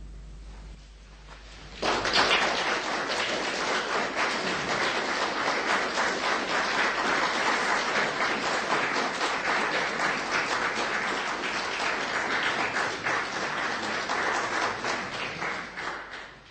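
Concert audience applauding, starting suddenly about two seconds in after a brief quiet and continuing as steady, dense clapping until it fades out near the end.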